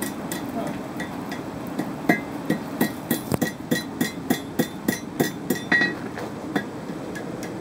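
Hammer striking an anvil in a steady run of about fifteen blows, roughly three a second, each blow ringing, over the steady rush of the coal forge's air blower.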